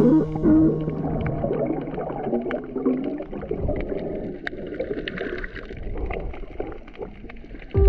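Underwater sound picked up by a snorkeler's camera: a muffled wash of moving water and gurgling, dotted with many scattered sharp clicks.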